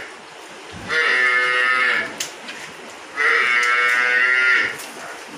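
Water buffaloes calling in a shed: two long, steady calls, the first about a second long and the second about a second and a half.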